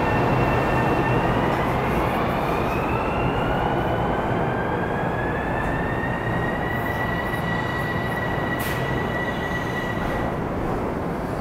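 NJ Transit Arrow III electric multiple-unit train pulling out of the platform and accelerating. Its whine rises in pitch for about five seconds, then holds steady over a constant rumble. There is a single sharp click about nine seconds in.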